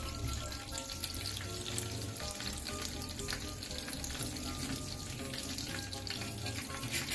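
Egg-battered stuffed squash (huicoy) frying in shallow oil in a skillet: a steady sizzle with light crackling.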